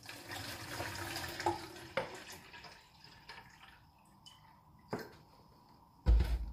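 Water poured from a cut plastic bottle into a plastic watering can: a steady splashing pour for about two and a half seconds that thins to a trickle and scattered drips. A short loud low thud comes near the end.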